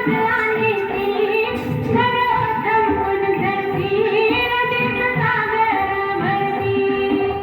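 A song with a high female voice singing a melody over Indian-style instrumental backing.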